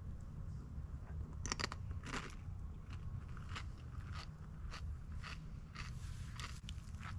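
A person chewing a crunchy mouthful of egg, with sharp crunches about every half second starting about a second and a half in.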